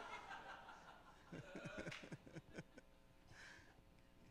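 Audience laughter fading away in the first second, followed by a few scattered short chuckles.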